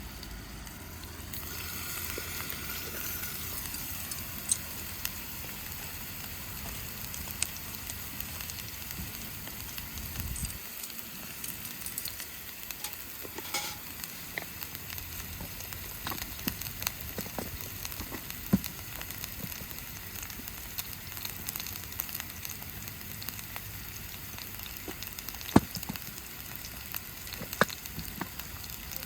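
Food sizzling in hot oil in a pan over a campfire, a steady hiss with scattered sharp pops. A low rumble underneath cuts off about ten seconds in.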